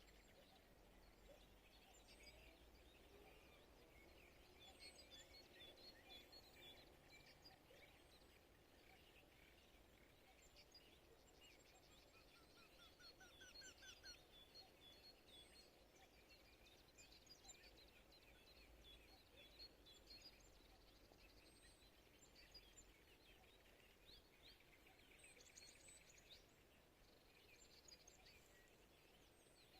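Faint morning chorus of small songbirds chirping and singing, with a short rapid trill about twelve seconds in.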